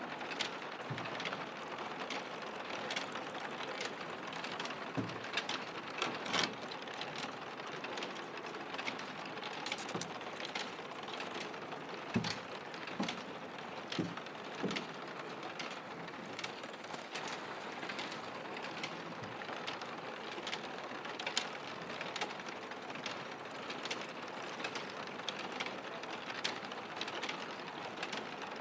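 Roof-tile factory machinery running: a steady mechanical clatter with many small clicks and a few louder knocks, one of the loudest about six seconds in.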